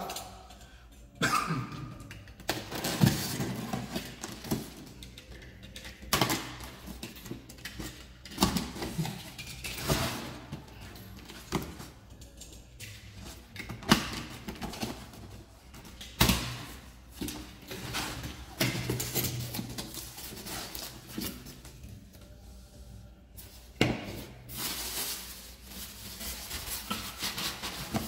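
Cardboard packaging being opened by hand: a utility knife cutting, cardboard flaps scraping and knocking, and plastic wrap and polystyrene packing rustling. These come as irregular scrapes and rustles with sharp knocks scattered through.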